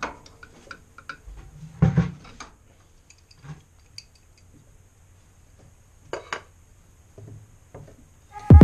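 Scattered metallic clinks and light knocks of a socket wrench and hands working on the crankshaft pulley of a VW 1600 engine, turning the engine over toward top dead center. Music cuts in at the very end.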